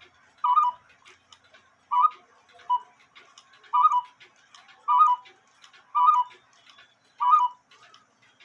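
German quarter-hour cuckoo clock calling: its bellows-driven whistle pipes sound a two-note cuckoo over and over, about once a second.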